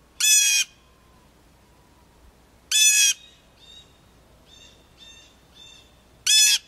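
A bird giving three loud, harsh squawking calls a few seconds apart, each under half a second. Fainter, shorter calls repeat in between from about three seconds in.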